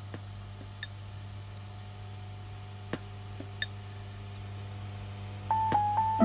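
Steady low electrical hum from an induction hob heating a steamer pan of dumplings, with scattered faint ticks and clicks. A few short clear tones sound near the end.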